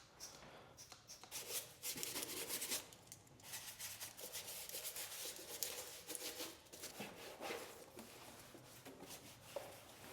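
Irregular rubbing and scraping strokes, as of a surface being rubbed or scrubbed by hand.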